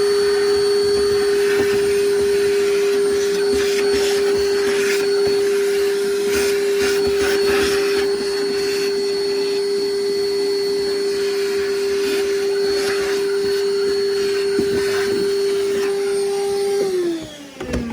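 Vacuum cleaner running steadily, sucking debris out of a corner of a damaged fiberglass boat floor, with scattered rattles. About 17 seconds in it is switched off and its whine falls in pitch as the motor winds down.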